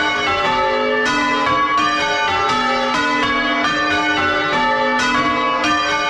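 A ring of six chip-tuned church bells, tenor about 9 cwt, rung full circle in change ringing and heard close up in the belfry. The bells strike one after another in quick, even succession, each note ringing on under the next.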